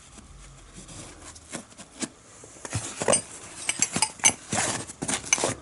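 Small Snap-on spanners clinking against each other as they are handled: an irregular string of sharp metallic clicks and clanks.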